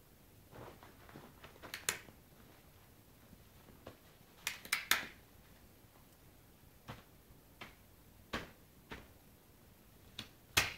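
Kitten playing with a deflated rubber balloon on a bedspread: irregular sharp clicks and short rustles as it paws and bites the rubber, with a louder flurry about halfway through and single clicks after it.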